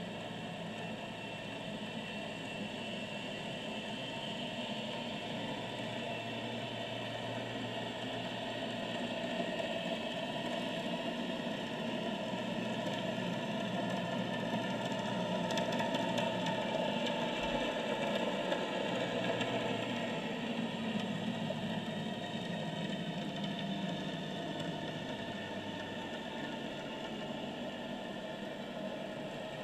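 A motorboat engine heard underwater: a steady low hum with a hiss over it, growing louder toward the middle and then slowly fading as the boat passes.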